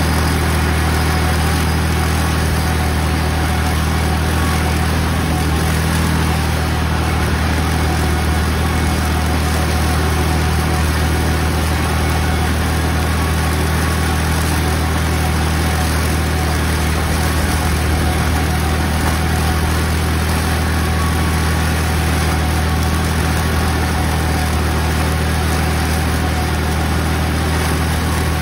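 Tractor engine running steadily under load while driving a belt-driven mower that cuts the strawberry plants, a constant low drone with no change.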